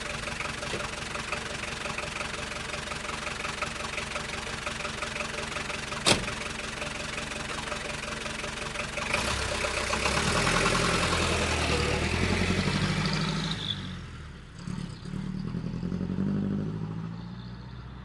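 Austin London taxi's engine idling steadily, with a single sharp click about six seconds in. About halfway through the engine speeds up and gets louder, its pitch rising and falling twice, then the sound fades away near the end.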